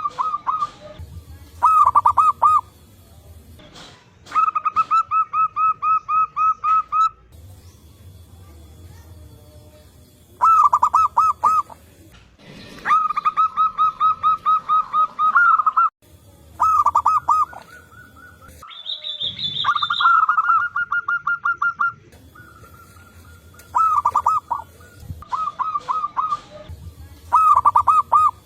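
Zebra doves (perkutut) cooing: about a dozen phrases of fast pulsing notes at a steady pitch, separated by short pauses, as birds answer one another. A brief higher call comes in about two-thirds of the way through.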